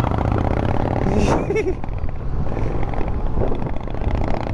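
Steady road and engine rumble inside a moving car's cabin, with a brief vocal sound about a second in.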